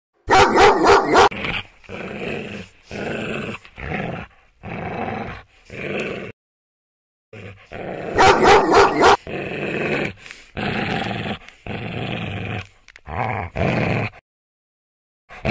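A dog sound effect: a quick burst of rapid barks, then a string of shorter separate calls, each under a second long. After a silent gap of about a second the same run of barks and calls repeats.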